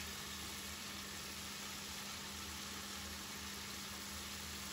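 Steady sizzling and bubbling of a pan of chicken curry with vegetables cooking over a gas burner, with a pot of water boiling on the burner beside it.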